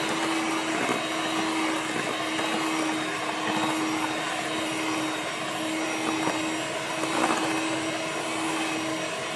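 Electric hand mixer running steadily at one speed, its beaters churning thick butter-cake batter in a stainless steel bowl as flour is beaten in.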